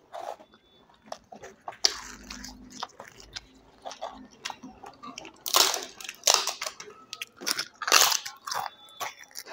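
A person breaking and biting crisp fried papad close to a lapel microphone: crackling about two seconds in, then several loud crunchy bites with chewing in the second half.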